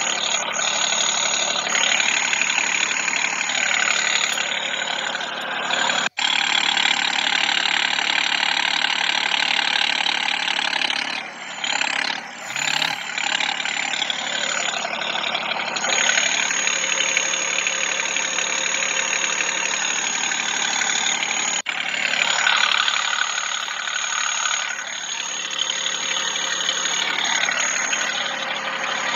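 Tractor's diesel engine running steadily as the tractor is driven with its front wheels lifted off the ground. The sound cuts out abruptly for an instant about six seconds in and again about twenty-two seconds in.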